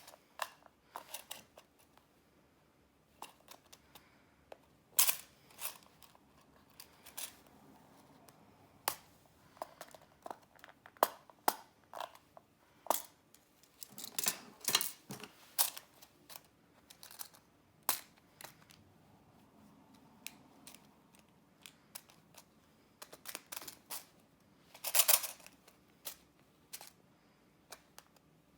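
Irregular clicks, taps and rustles of small objects and packaging being handled, with a denser run of clicks midway and a louder, longer scrape near the end.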